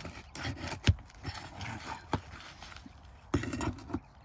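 A metal tool knocking and scraping against a roofing nail and asphalt shingles as a nail is worked loose: a few sharp knocks, the loudest about a second in, with rubbing and scraping between.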